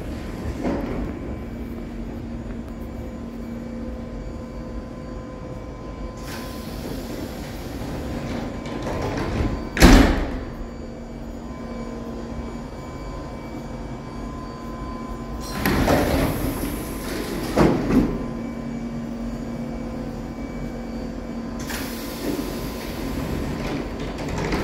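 Light-rail underground train standing at the platform, running with a steady hum. Its doors work with hisses of air and bang shut: the loudest bang is about ten seconds in, with two more about six and eight seconds later.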